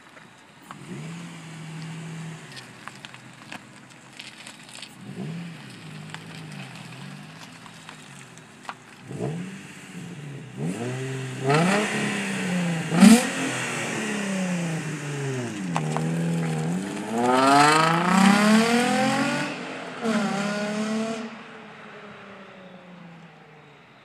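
Infiniti G35 coupe's 3.5-litre V6 through a custom exhaust of 2.5-inch Y-pipe, resonated test pipes and stock rear muffler: idling, a few throttle blips, then pulling away and accelerating hard in loud rising sweeps, with one sharp crack midway. The sound fades into the distance near the end.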